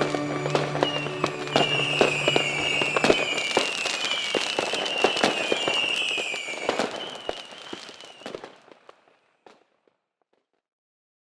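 Fireworks crackling and popping, with a string of short falling whistles. They fade out about eight seconds in, followed by silence. The tail of the song dies away at the start.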